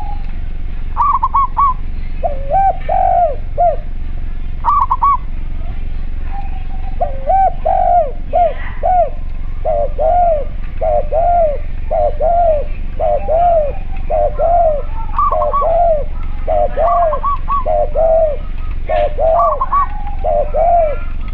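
Spotted dove (tekukur) and collared dove (derkuku) cooing together, a recording used as a lure call. One bird repeats a low arched coo about once a second, while the other breaks in every few seconds with higher notes, over a steady low hum.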